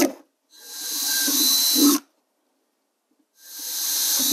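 DeWalt DC970 cordless drill with a 1/4-inch bit boring holes through 1/8-inch masonite. It runs twice, each run building up speed and stopping suddenly after about a second and a half.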